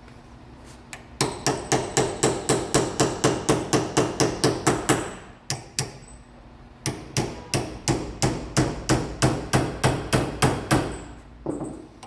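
Hammer tapping a small cold chisel in quick, even blows, about four a second, in two long runs with a short pause between. The blows work the old seal loose from the snout of an A833 four-speed transmission's bearing retainer.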